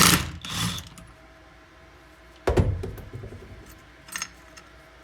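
Impact wrench on a 28 mm socket firing two short bursts, at the start and about two and a half seconds in, loosening the clutch nut on a Honda CR250 engine.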